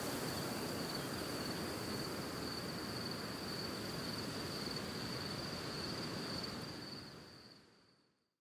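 Outdoor ambience: a steady, high-pitched insect trill over a soft hiss, fading out to silence over the last two seconds.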